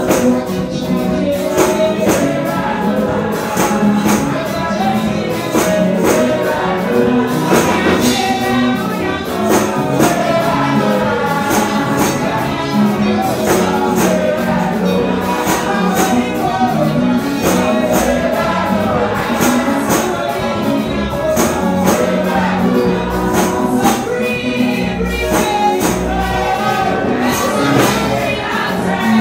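Live gospel worship music: a lead singer with backing singers over a steady beat.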